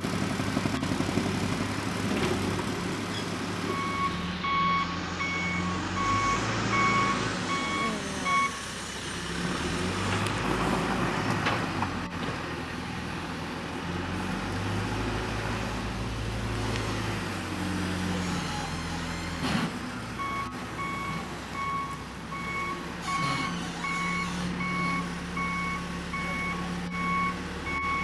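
Diesel engine of a John Deere 310SG backhoe loader running and revving as it works, with its reversing alarm beeping at about two beeps a second, once from about four to eight seconds in and again from about twenty seconds in. A single sharp clunk comes just before the second run of beeps.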